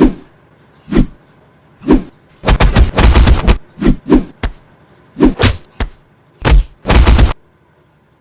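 Gunshot sound effects: three single shots about a second apart, then a burst of rapid fire, more single and quick double shots, and another short burst near the end.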